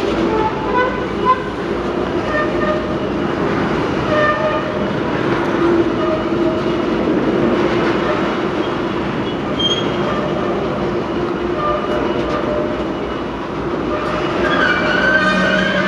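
A freight train of tank cars rolling steadily past, its steel wheels rumbling and clattering on the rails, with thin high squealing tones that come and go and grow stronger near the end.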